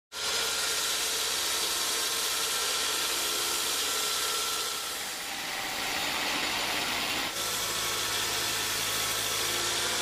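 Band sawmill cutting teak logs: the blade running through the wood with a steady, hissing noise over the motor's hum. The sound changes abruptly about five seconds in and again a couple of seconds later.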